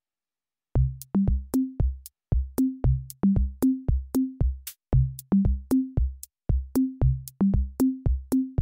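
Background music: an electronic drum beat of deep kick and pitched tom hits in a steady repeating pattern, starting just under a second in after a brief silence.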